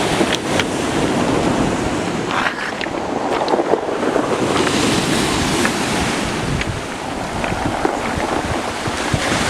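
Wind buffeting the microphone over a steady rush of sea surf, swelling and easing in gusts.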